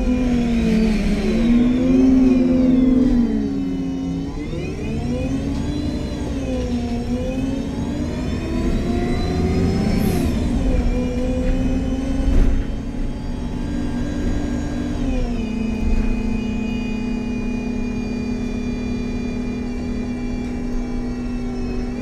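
MAN Lion's City G articulated bus running on its CNG engine with a Voith automatic gearbox, the loud drive-train whine rising and falling in pitch several times as the bus accelerates and shifts, then settling into a steady pitch with a high whine for the second half.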